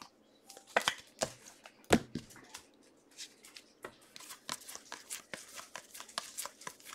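Stack of football trading cards being handled and flipped through by hand: a run of soft clicks, taps and slides as the cards snap and rub against each other, with a couple of sharper taps in the first two seconds.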